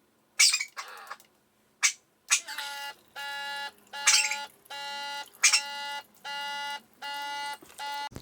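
A couple of sharp knocks, then an electronic appliance beeping: a steady series of about seven evenly spaced, pitched beeps at roughly one a second.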